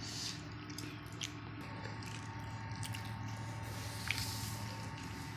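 Quiet room tone: a steady low hum, with a few faint clicks and a brief soft rustle about four seconds in.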